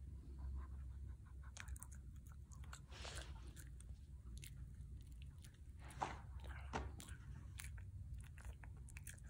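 A Shih Tzu chewing a dog treat: faint, scattered, irregular crunches, the loudest about six seconds in.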